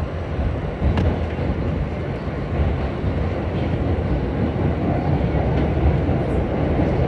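Subway train running at speed, heard from inside the car: a steady low rumble of wheels on the track, with a single click about a second in.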